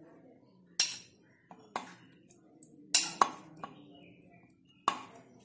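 Pieces of cooked chicken tipped from a ceramic plate into an empty stainless-steel mixer-grinder jar: about five sharp metallic clinks and knocks, the loudest about three seconds in.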